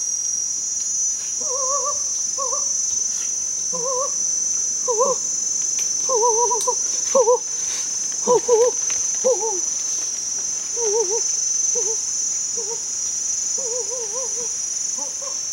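Steady high-pitched drone of an insect chorus in tropical forest. Over it, short wavering animal calls come in quick little phrases, loudest near the middle.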